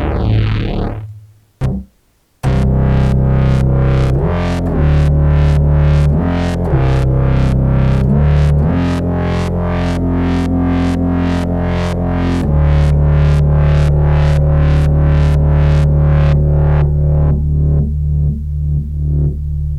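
Electronic music: a synth with a sweeping filter cuts out after about a second, then a brief silence. A pulsing synth pattern comes in over a deep sustained bass line that shifts pitch every few seconds, at about three pulses a second. This is a pattern from a Maschine sound pack played back.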